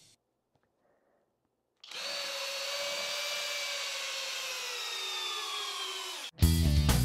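Flex FX1271T 24V brushless hammer drill driving a 1/2-inch by 8-inch lag screw into stacked pine 2x4s. It starts about two seconds in and runs steadily for about four and a half seconds, its whine falling slowly in pitch as the motor slows under the growing load. It stops abruptly.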